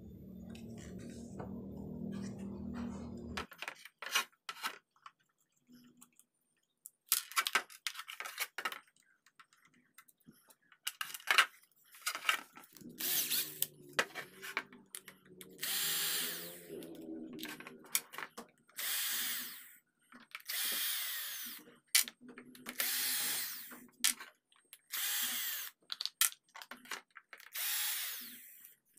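Cordless drill-driver running in about six short bursts, each about a second and a half, as it backs out the screws holding an electric wood planer's belt cover. Before the bursts come sharp clicks and knocks from handling the planer and its metal parts.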